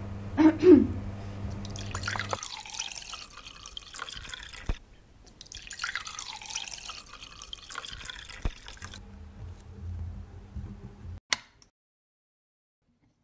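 Liquid running or pouring in two spells of a few seconds each, with sharp clicks between. A brief, loud pitched sound comes about half a second in, and everything cuts off sharply near the end.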